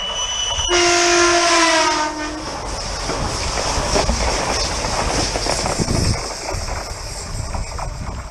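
Renfe Civia electric commuter train sounding its horn as it passes: a short high note, then a loud low blast of about a second and a half that sags slightly in pitch. The rush and rumble of the train going by follows.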